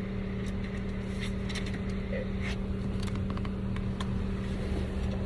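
Steady low hum of an idling car engine, with a few faint clicks.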